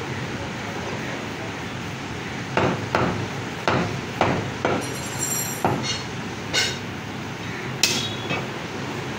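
Meat cleaver striking a wooden log chopping block while cutting mutton: a run of about eight sharp, irregularly spaced knocks starting about two and a half seconds in, over a steady background hiss.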